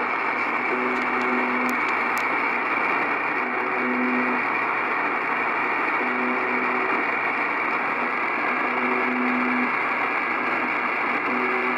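The Russian 'buzzer' shortwave station on 4625 kHz (UVB-76) received in upper sideband on an Icom IC-R8500: a short, low buzz of about a second, repeating roughly every two and a half seconds over a steady bed of shortwave static hiss. This is the station's round-the-clock channel-marker signal, coming in strong on good propagation.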